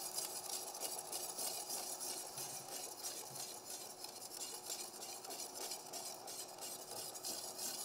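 Wire whisk stirring a boiling sauce in a metal pan, faintly scraping the metal, as a cornstarch slurry is whisked in to thicken the sauce.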